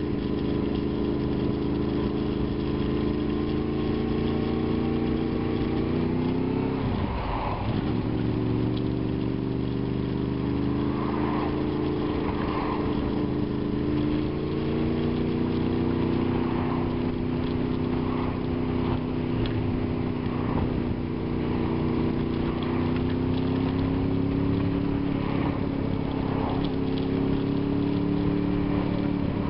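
Honda VFR's V4 engine running under way at steady moderate revs, heard from the rider's seat along with road noise. About seven seconds in, its pitch dips sharply and climbs back.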